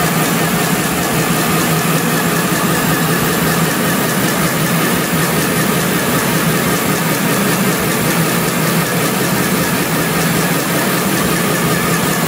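Mini portable sewing machine's small electric motor running steadily under the foot pedal, spinning the bobbin on the handwheel winder spindle to wind thread onto it.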